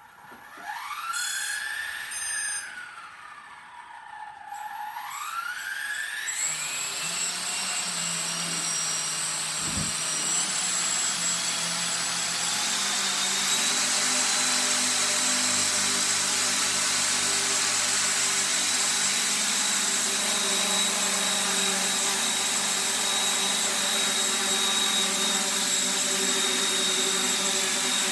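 Electric motor and rotors of a small radio-controlled scale Black Hawk helicopter spooling up. A motor whine rises, dips and rises again, then builds into a steady high whine with a rushing rotor sound as the model comes up to speed and lifts into a low hover.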